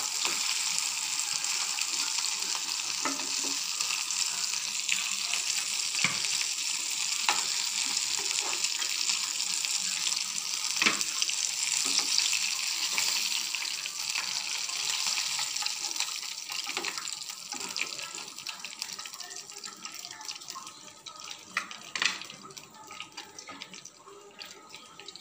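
Chicken pieces deep-frying in hot oil in a kadai, fully fried: a steady sizzling hiss with occasional sharp clicks. The sizzle fades away over the last several seconds.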